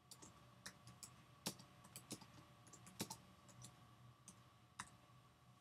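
Faint keystrokes on a computer keyboard, about a dozen irregular taps as a short phrase is typed.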